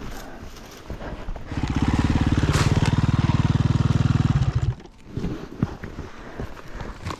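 Dirt bike engine given steady throttle for about three seconds, starting about a second and a half in, then falling away. Quieter scrapes and knocks follow.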